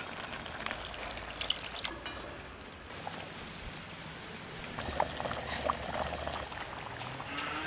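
A thin liquid poured from a pan into a clay pot of curry, splashing and trickling, with a spoon scraping and clinking against the pan in short clusters.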